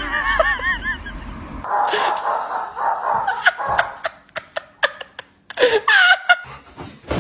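Person laughing in a run of short repeated bursts, with more laughing sounds a few seconds later and scattered clicks in between.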